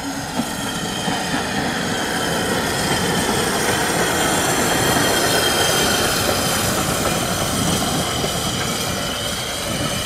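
Ex-SECR P-class 0-6-0 tank steam locomotive no. 753 and its carriage running past, the noise swelling to a peak about halfway and then easing off. A steady high squeal rides over the running rumble.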